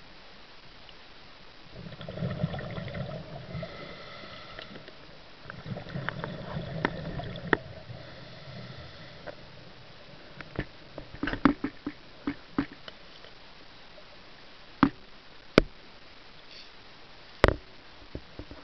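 Underwater: a diver's exhaled breath bubbling and rumbling out twice, then a run of scattered sharp clicks and knocks.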